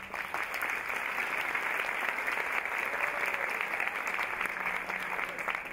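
Theatre audience applauding: dense, steady clapping from a full house that thins out near the end as a low note of music comes back in.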